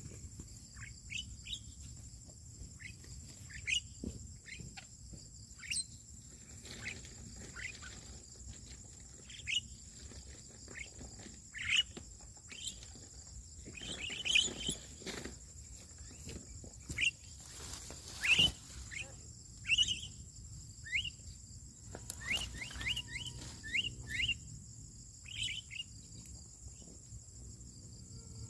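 Birds giving short, sharp chirps, most of them falling quickly in pitch, scattered irregularly and busiest around the middle and again toward the end. Underneath runs a steady high-pitched insect drone.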